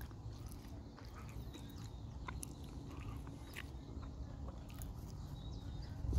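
Quiet outdoor ambience: a steady low rumble with scattered small clicks and faint short chirps.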